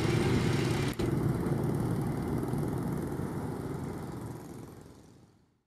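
Small motorcycle engines running as traffic moves across the crossing, with a brief break about a second in; the traffic sound fades out toward the end.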